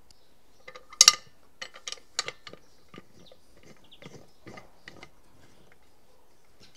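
Lid of an Afghan kazan, a cast-aluminium pressure cauldron, being fitted and clamped shut: a loud metallic clack about a second in, then a run of smaller clicks and knocks as the lid and clamps are set.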